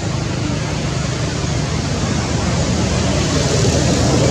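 A steady engine drone, with a low rumble, that grows slowly louder.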